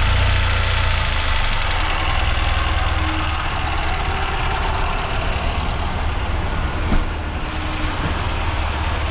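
Tata Nano's two-cylinder petrol engine idling just after starting, with its AC compressor running. The compressor bearing has failed and the compressor's pumping is weak. A single short click comes about seven seconds in.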